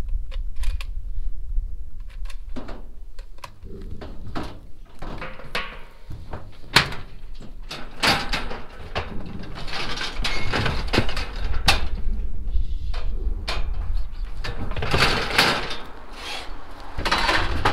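Priefert steel squeeze chute clanking as its gates and head catch are worked: many sharp metal knocks, with longer rattling stretches about eight seconds in and again near the end, over a steady low rumble.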